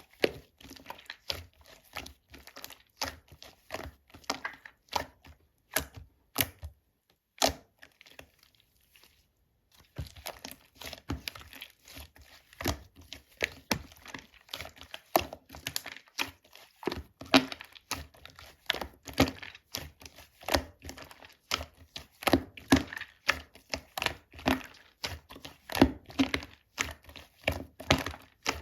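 Hands squeezing and poking slime: quick runs of wet clicks and pops of trapped air, with a pause of a couple of seconds about a third of the way in.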